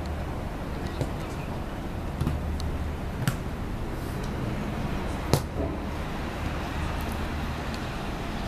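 Steady low outdoor rumble, like distant traffic, with two sharp knocks, one about three seconds in and a louder one just past five seconds.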